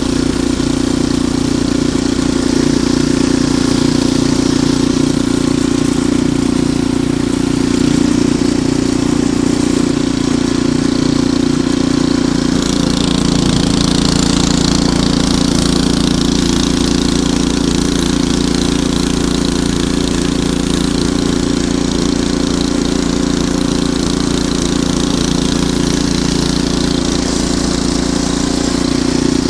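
Ariens Deluxe 28 snowblower's engine running steadily. About twelve seconds in, its note shifts and a hiss rises over it.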